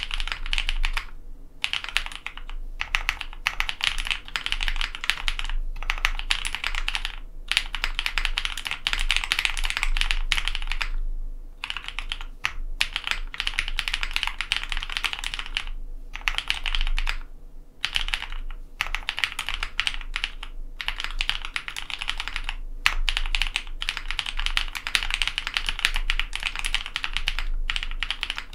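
Steady typing on a custom Matrix ME SE mechanical keyboard: lubed linear switches (Cherry MX Black housings with Kailh Red stems) on an aluminum plate, with GMK keycaps. Dense runs of keystrokes are broken by brief pauses every few seconds.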